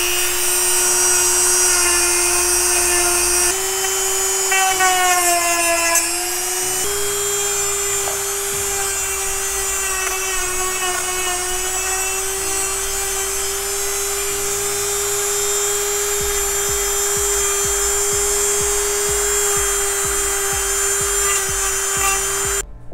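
Handheld electric rotary tool running at high speed with a steady whine, its bit grinding loose, frayed page edges inside a book's cut-out cavity. The pitch sags and wavers under load from about four to seven seconds in. It switches off abruptly just before the end.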